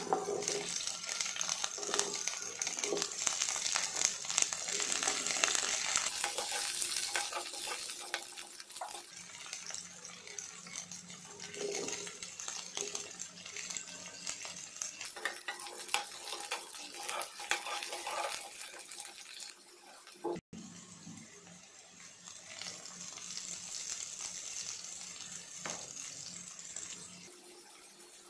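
Chopped onions, capsicum and green chillies sizzling in hot oil in a nonstick frying pan, a steady hiss with scattered crackles and clicks. The sizzle is strongest at first, quieter in the middle, cuts out for a moment about twenty seconds in, then comes back.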